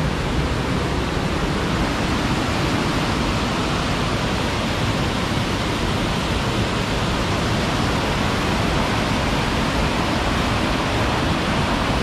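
Waterfall close by: a loud, steady rush of falling water with no pause.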